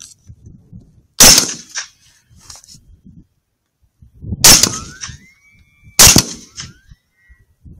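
Three rifle shots from a 6.5 Grendel: the first about a second in, the next two about a second and a half apart near the middle. Between the last shots a thin high tone rises and holds briefly.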